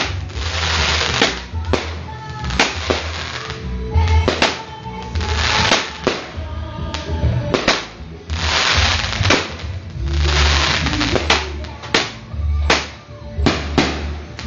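Fireworks going off: many sharp bangs in irregular succession, with several long stretches of hissing crackle, over music with a steady low beat.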